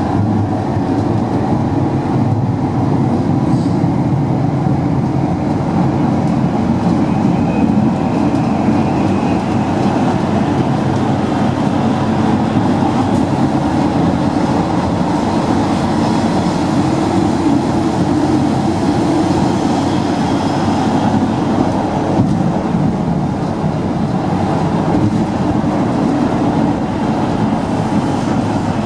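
Rome Metro Line C train running at speed through a tunnel, heard from inside the front car: a steady rolling noise of wheels on rail, unbroken throughout.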